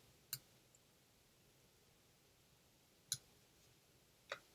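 Three separate computer mouse clicks in near silence: one just after the start, one about three seconds in, and one near the end.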